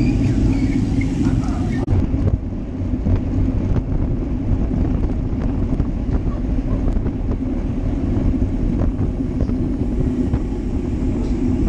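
Wind buffeting the microphone of a bike-mounted GoPro Hero Session at road-race speed, with a steady rumble of tyres on asphalt. The sound changes abruptly about two seconds in.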